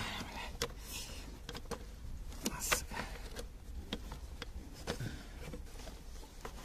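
Rubber air intake hose of a Renault Megane 2 being twisted and pushed onto its plastic fittings by gloved hands: rubbing with scattered irregular clicks and knocks, the loudest knock about two and a half seconds in.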